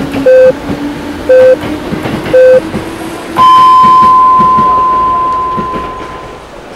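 Three short electronic beeps about a second apart, then a longer, higher-pitched beep that fades away over about three seconds, in the pattern of a time signal. Underneath, a low steady tone slowly rises in pitch, with faint rhythmic clicks.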